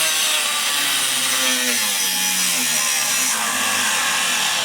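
Reciprocating saw cutting steadily, a continuous rasping saw noise with a slightly wavering motor pitch.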